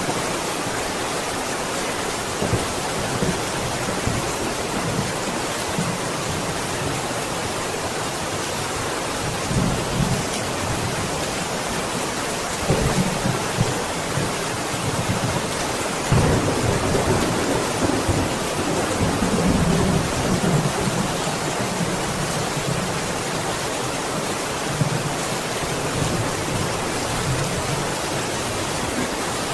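Steady heavy rain with thunder rumbling low several times, the longest rumble lasting several seconds a little past the middle.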